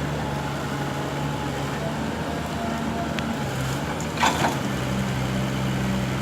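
Engine running steadily at a low hum, its pitch shifting twice, about three and a half seconds in and again near five seconds.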